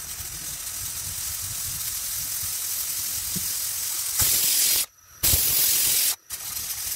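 Pressure cooker on high heat venting steam through its weighted whistle valve: a steady hiss that builds, then loud whistle blasts from about four seconds in, cut off abruptly twice. The whistles mark the count used to time the cooking of the vegetables.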